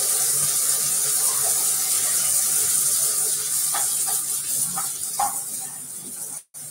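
Water running hard from a sink tap as a paint stencil is rinsed under it, with a few light knocks a little past halfway. The sound stops abruptly shortly before the end.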